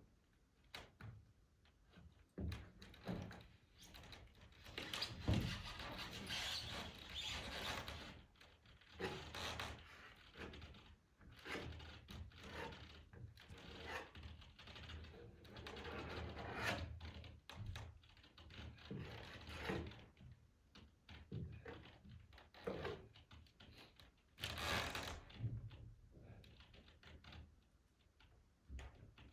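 Irregular taps, knocks and scraping on a greenhouse roof, with a few heavier thumps, from sealing work on its seams.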